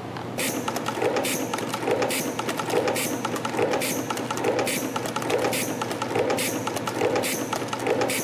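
CNC micro spring coiling machine (YHM CT-210) forming 0.8 mm wire. It starts about half a second in and runs a rhythmic production cycle, about one spring every 0.8 s, each cycle with a short hiss over a steady hum.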